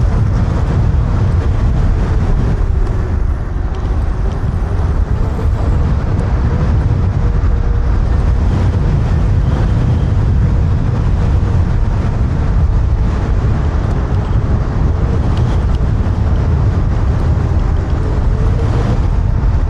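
Heavy wind noise on the microphone during a ride on a Kaabo Wolf King GTR electric scooter. Underneath it the hub motors give a faint, steady whine that wavers slightly in pitch.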